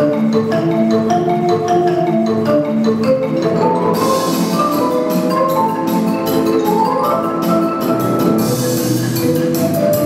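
Music on tuned mallet percussion, marimba-like melodic lines over lower held notes, with a quick rising run about seven seconds in and a bright shimmering wash entering about four seconds in.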